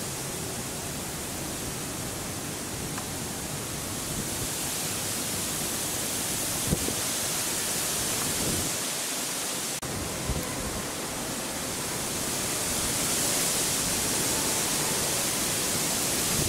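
Steady rain hiss, with one sharp tap about seven seconds in. The hiss grows somewhat louder in the last few seconds.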